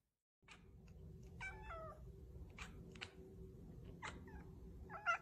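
White long-haired cat meowing softly: one drawn-out meow about a second and a half in, then shorter ones, the loudest near the end, over a steady low hum.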